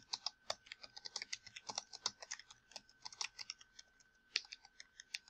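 Typing on a computer keyboard: quick, irregular keystrokes, with a short pause a little past the middle.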